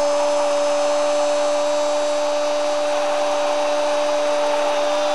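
A TV football commentator's long drawn-out goal cry, one note held at a steady pitch without a break, over continuous stadium crowd noise.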